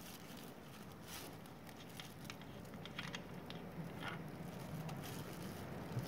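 Engine oil dripping from a scooter's drain hole into a container: faint, irregular drips as the last of the oil runs out.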